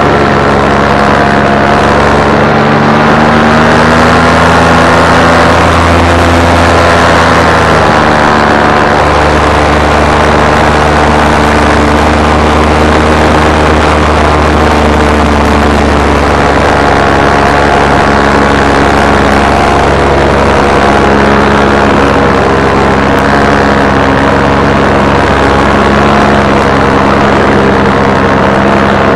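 Quadcopter drone's motors and propellers running steadily, a hum of several pitches at once that rises briefly and drops back about six to eight seconds in as the motors change speed.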